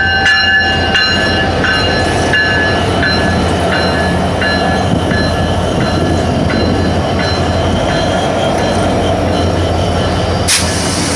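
Diesel-electric freight locomotives passing at close range, their engines running with a steady low drone while the wheels click regularly over the rail joints and squeal faintly. Near the end a sudden loud hiss starts.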